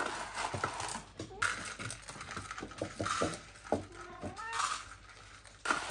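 Dry cat food rattling in a plastic container as it is scooped out, with short clicks throughout and a cat meowing once about four and a half seconds in.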